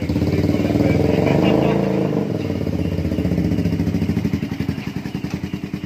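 Classic-style motorcycle engine running close by, loud at first, its pitch falling as it slows, then settling into a steadier, lumpy run with evenly spaced exhaust beats and fading a little towards the end.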